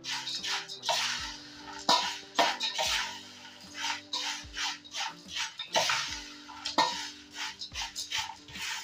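A perforated steel ladle repeatedly scraping and tossing dry, crisp fried poha flakes and peanuts in a stainless steel bowl, in irregular rustling strokes about one to two a second. The fried ingredients are being mixed together for chevda. Background music plays underneath.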